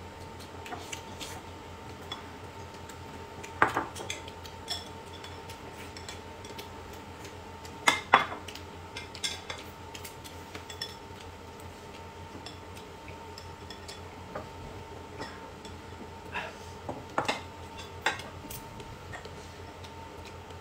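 Eating utensils clinking and tapping against bowls and dishes, with sharper clinks about four seconds in, twice around eight seconds, and again around seventeen to eighteen seconds. A faint steady hum runs underneath.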